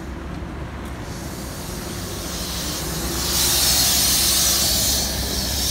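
Neoplan trackless trolley bus passing close, with a loud burst of air-brake hiss starting just over three seconds in and lasting under two seconds, over a low rumble.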